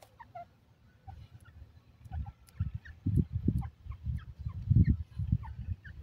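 Grey francolin making soft, low clucking notes in quick irregular runs that grow louder about halfway through, with scattered short high chirps over them.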